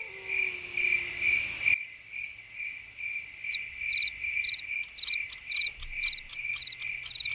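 Crickets chirping at night: a steady high chirp pulsing about two to three times a second, joined about halfway by a second, faster chirping with short clicks.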